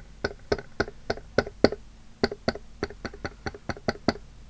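Quick, sharp taps, about three or four a second, of paint-loaded punchinella (sequin waste) being dabbed onto the box's surface. The dabbing pauses briefly around the middle and stops near the end.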